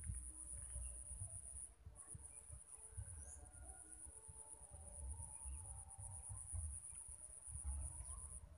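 Insects droning in one steady high-pitched tone that drops out briefly a couple of times, over an uneven low rumble.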